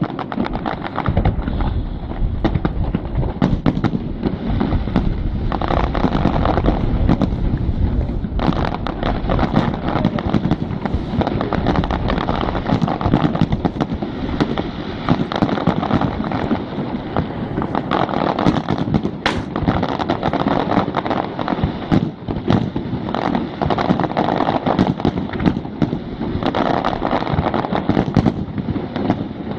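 Fireworks display: a dense, continuous barrage of aerial shells going off, with overlapping bangs, booms and crackling and no pause between them.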